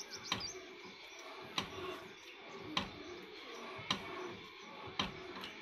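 Sharp metallic clicks repeating evenly, a little more than a second apart, from an old Ruston & Hornsby diesel engine while it is being worked on. Birds chirp faintly in the background.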